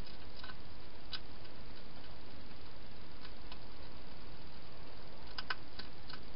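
Hedgehog crunching dry food at a bowl: scattered sharp clicks, some in quick pairs, over a steady hiss.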